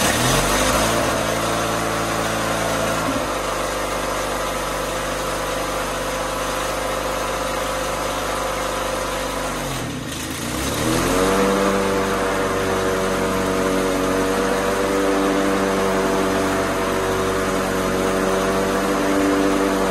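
Briggs & Stratton engine of a White LT1650 hydrostatic riding mower running, just started on the key. About halfway through, the engine speed dips briefly, then climbs and holds at a higher steady speed.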